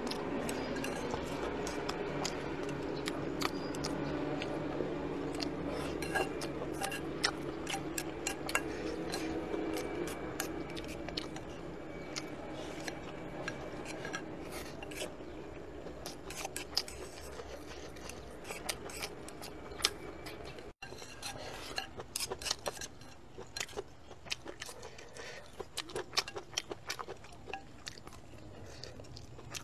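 Chopsticks clicking and scraping against a ceramic rice bowl as food is scooped from it, in many quick irregular clicks.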